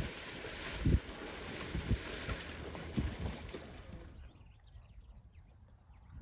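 Wind rushing over the microphone with low buffeting thumps about once a second. After about four seconds it cuts off suddenly to a quiet background with a few faint, short, high chirps.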